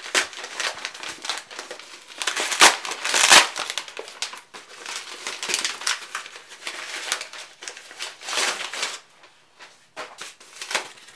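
Paper and cardboard parcel packaging crinkling and tearing as a heavily taped package is cut and pulled open by hand, loudest about three seconds in.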